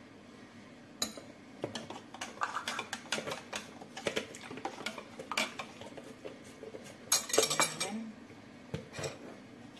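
A spoon clinking and scraping against a measuring jug as it stirs a soy-sauce, pineapple-juice and pepper marinade: irregular clinks, busiest about seven seconds in.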